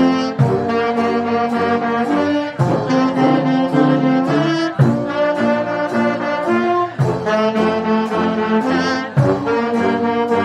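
Brass band playing: trombones, saxophones and trumpets in held, stacked notes, with a sharp ensemble hit about every two seconds.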